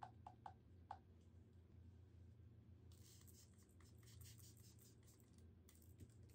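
Faint crinkling of crumpled paper being handled, a dense crackly rustle from about halfway through. A few soft ticks come near the start, over a low steady hum.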